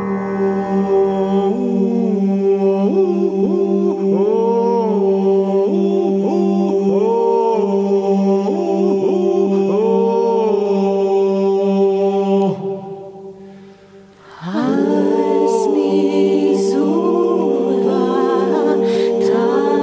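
Soundtrack music: singing voices over held low drone notes. It fades away about two-thirds of the way through and starts again about two seconds later.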